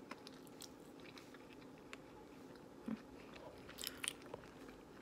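Faint chewing and small mouth clicks from a person eating a forkful of soft cooked quail egg, over a low steady hum.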